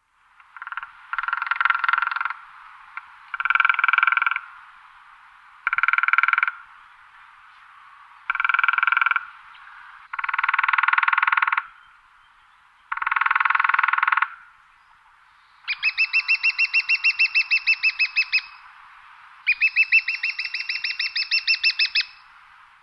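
Woodpecker drumming: six rapid bill rolls on wood, each about a second long and about two seconds apart. Near the end come two longer, slower rolls of separate knocks, each about three seconds, with a ringing tone.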